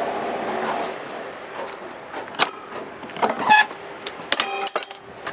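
Narrow-gauge railcar rolling on the rails, its rumble dying away about a second in. A string of sharp metallic clanks and brief squeals follows.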